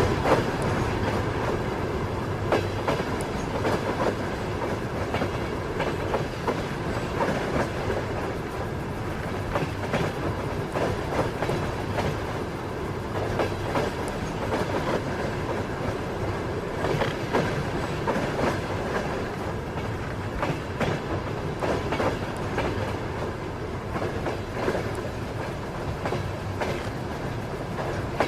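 Train wheels clacking over rail joints at running speed, with knocks every second or two over a steady rumble of the moving train.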